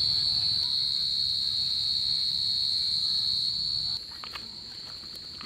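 Insects droning in one steady high-pitched chorus, which drops suddenly to a quieter level about four seconds in. A few light rustles or clicks follow near the end.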